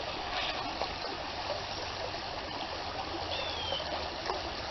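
Creek water running and trickling steadily, with one brief faint chirp about three and a half seconds in.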